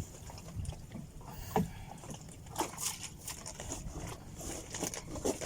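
Small fishing boat at sea: a steady low rush of wind and water, with scattered light knocks and clicks, the clearest about a second and a half in.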